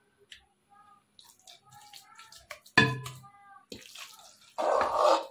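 Metal spoon scooping mashed sweet potato from an aluminium pot into a clay tagine: soft scrapes and clinks on the pot, wet squelches of the mash, and a louder scrape near the end.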